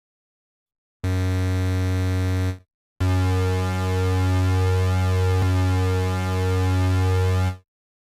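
Tyrell N6 software synthesizer playing two held low notes, run through a chorus: a short one of about a second and a half, then a longer one of about four and a half seconds with a shifting, shimmering chorus sweep. Each stops cleanly into silence.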